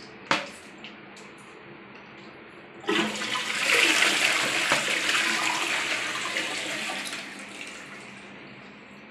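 Test flush of a newly installed close-coupled ceramic toilet. A click comes shortly after the start; then, about three seconds in, water rushes suddenly into the bowl and swirls down, gradually fading away over the following five seconds.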